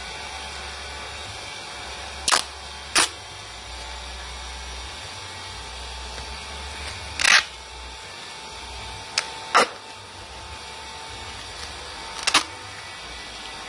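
About six sharp clicks and brief rustles from handling the packaging around a gemstone as it is secured for sending, spread unevenly over a steady low hum. The loudest and longest comes about halfway through.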